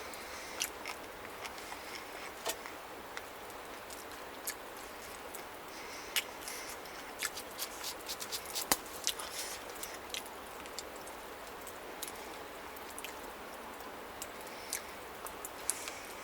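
Wood campfire crackling: irregular sharp snaps and pops over a steady background hiss, busiest about six to ten seconds in.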